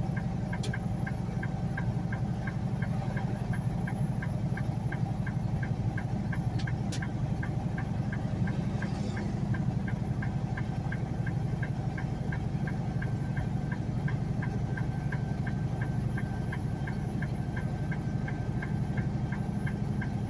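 Semi truck's diesel engine droning steadily inside the cab while pulling a loaded trailer up a mountain grade at about 35 mph, with a regular ticking about twice a second over it.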